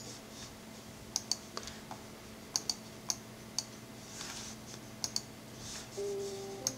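A handful of sharp, light clicks, several in quick pairs, with a couple of soft hissing noises between them, over a faint steady hum. A steady tone comes in near the end.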